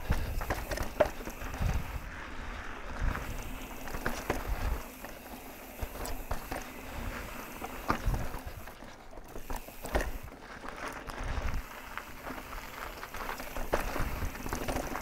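Mountain bike ridden over rocky dirt singletrack: tyres crunching on dirt and sandstone, with irregular clicks, knocks and rattles from the bike and uneven low rumbles.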